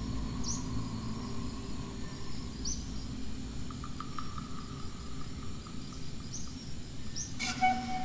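Forest ambience with a low steady background noise and a small bird's short, high chirp repeated every two to three seconds. Near the end a different sound with several steady tones comes in.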